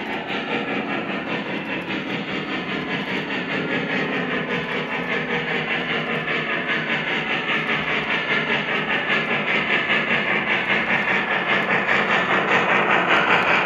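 Lionel Vision Line Niagara O-gauge model steam locomotive running, its onboard sound system chuffing in a fast, even rhythm over the noise of its wheels on three-rail track, getting slightly louder as it approaches.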